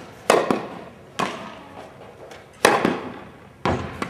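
Tennis rally: about four sharp pops of a tennis ball struck by rackets and bouncing on the court, roughly a second apart.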